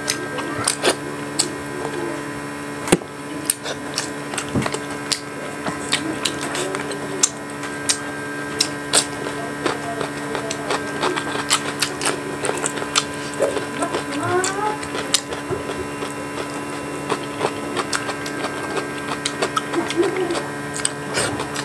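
A person eating close to the microphone: chewing and lip-smacking with many sharp, irregular wet clicks, over a steady electrical hum.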